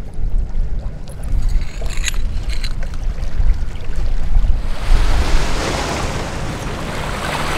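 Wind rumbling on the microphone, with a few light clicks in the first seconds. About five seconds in, the steady hiss of small waves washing onto the stony shore joins in.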